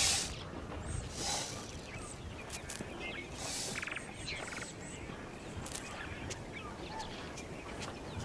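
Dry-bush outdoor ambience: small birds calling with many short high chirps and a couple of quick rattling trills, and three brief hissing rushes about a second apart.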